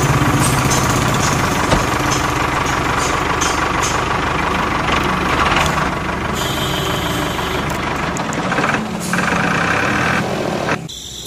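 Tractor engine sound running steadily, laid over a toy tractor that has no engine of its own. Its texture changes around eight seconds in, and it drops away just before the end.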